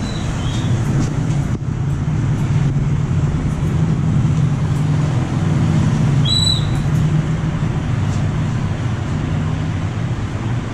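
Steady rumble of passing road traffic, with a brief high squeal about six seconds in.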